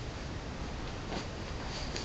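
Steady hiss of room tone and microphone noise, with two faint, brief rustles of someone moving close to the microphone, about a second in and near the end.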